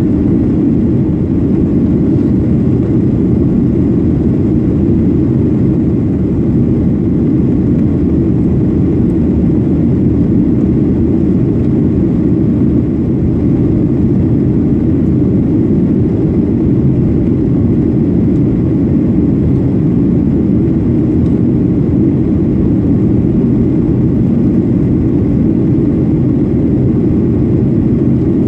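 Cabin noise of a Boeing 737-800 in the climb, heard from a window seat over the wing: the steady, low-pitched noise of its two CFM56-7B26 turbofan engines and the airflow, unchanging throughout.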